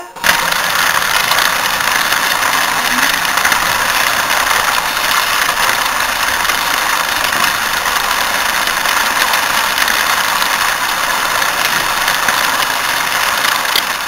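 A toy train's motor and wheels running along sectional track, heard close up from on board: a loud, steady running noise that starts abruptly and dies away near the end.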